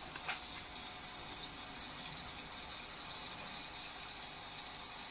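Lucky-Kitty ceramic cat drinking fountain running, heard up close: a steady sound of water flowing over the ceramic bowl, while the electric pump itself is ultra quiet.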